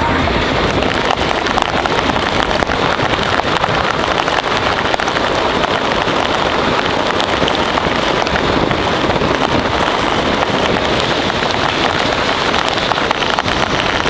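Mercedes-Benz 4matic car ploughing through deep snow. Snow sprays against the body and packs under the car, heard as a loud, steady rushing hiss full of fine crackle, much like heavy rain on the car.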